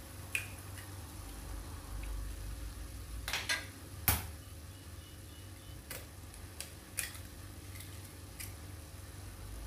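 Two eggs being cracked and dropped into a nonstick pan of stir-fried broccoli: a series of sharp shell taps and clicks, the loudest about four seconds in, with more around six and seven seconds, over a faint low hum.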